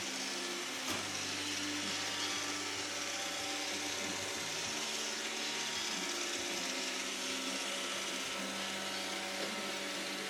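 iRobot Roomba 550 robot vacuum running, a steady whirring hiss from its vacuum motor and brushes, with a single knock about a second in. Sustained music notes shift underneath.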